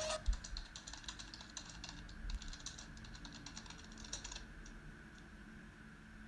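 Typing on a computer keyboard: a quick, irregular run of key clicks that stops about four seconds in.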